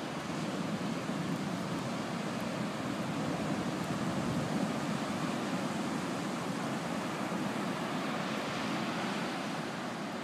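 Ocean surf breaking on a sandy beach: a steady wash of waves, swelling a little about four seconds in.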